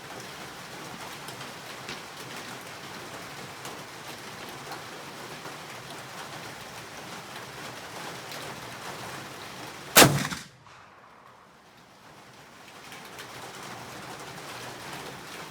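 A single shot from a CVA Wolf muzzleloader about ten seconds in, sharp and loud, over a steady hiss of rain.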